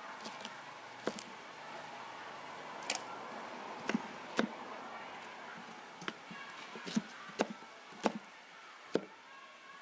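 Kitchen knife chopping through a pineapple, skin and all, and striking a wooden cutting board: about ten sharp knocks at irregular intervals.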